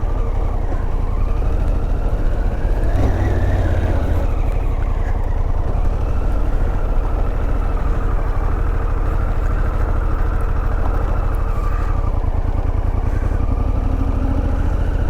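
Harley-Davidson Pan America's 1250 cc V-twin engine running under way, its pitch rising and then falling again about three seconds in, then holding steady.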